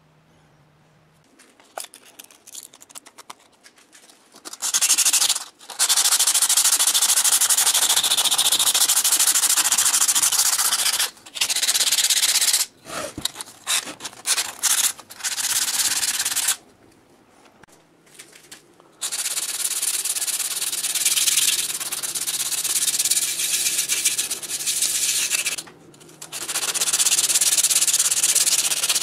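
Sandpaper rubbed by hand over hardened body filler on an air compressor cover, a scratchy hiss that starts about two seconds in and runs in long stretches broken by short pauses.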